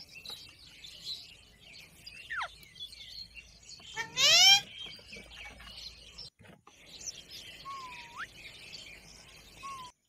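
Rose-ringed parakeets calling while feeding: one loud, rising, harsh call about four seconds in, with a few thinner whistled notes, one falling and one dipping then rising, and faint chatter throughout.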